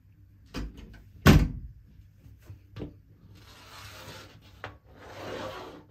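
A few sharp knocks, the loudest about a second in, then a soft rustling hiss for the last couple of seconds.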